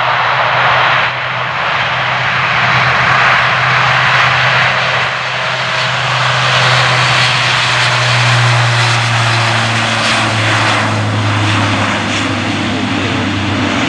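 Airbus A400M's four Europrop TP400 turboprops at take-off power during the take-off roll: a loud, steady rush of engine and propeller noise over a low propeller drone. The drone drops slightly in pitch after the middle as the aircraft passes.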